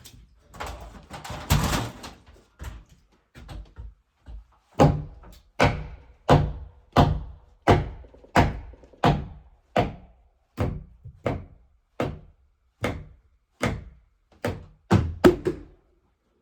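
Steady, heavy blows of a tool striking wood, about one every 0.7 seconds and some sixteen in all, starting about five seconds in. Before the blows there is a brief stretch of scraping and rustling.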